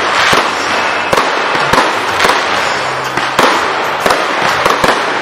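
24-shot firework battery firing in quick succession: sharp bangs roughly twice a second, with crackling in between.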